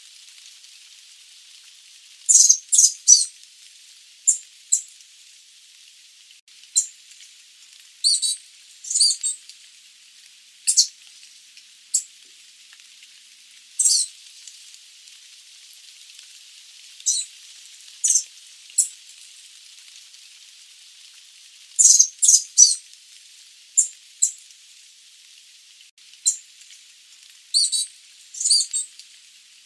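Sooty babbler calling: short, high-pitched notes, some single and some in quick runs of two to four, at irregular intervals over a steady faint hiss.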